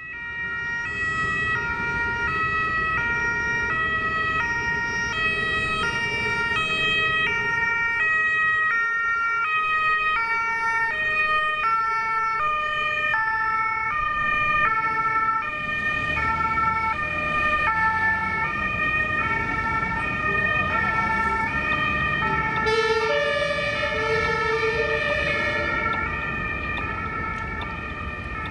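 German two-tone emergency vehicle sirens (Martinshorn) sounding their alternating high-low call, each note about half a second long. A second siren joins about halfway through and overlaps the first out of step, over the rumble of street traffic.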